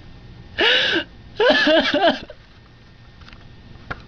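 A young man sobbing: a short wailing cry about half a second in, then a longer cry that wavers up and down in pitch.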